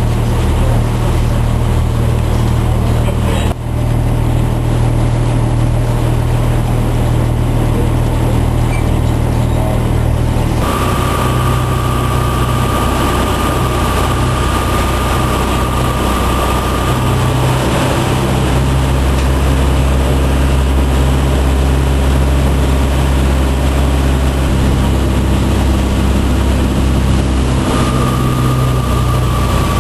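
Boat engine running steadily, a loud low hum that shifts abruptly about four and eleven seconds in. A thin steady whine sits over it for several seconds in the middle and again near the end.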